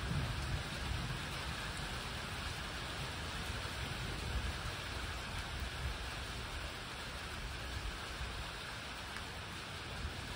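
Steady rain falling in a thunderstorm, with a low rumble of distant thunder underneath.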